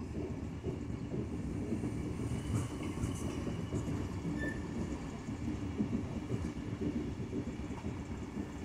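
Running noise of a moving TLK passenger train heard from inside the carriage: a steady low rumble of wheels on the rails.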